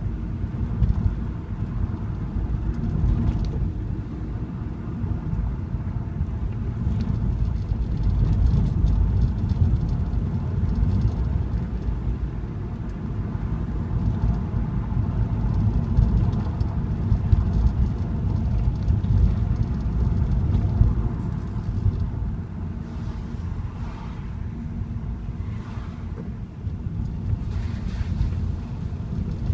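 A car driving along, its engine and tyres making a steady low rumble that rises and falls a little, with a few light ticks here and there.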